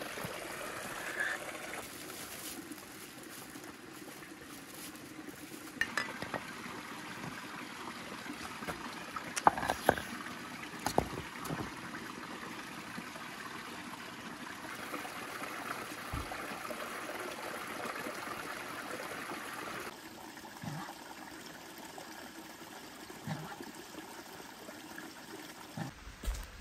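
Water trickling steadily from a pipe into a small rocky pool, with a few sharp knocks about six and ten seconds in. Partway through, the trickle gives way to a quieter outdoor background.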